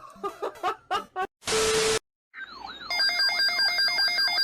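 A few short chirping sounds, then a half-second blast of static, then an electronic tone that warbles up and down before settling about three seconds in into a steady, repeating ringing tone.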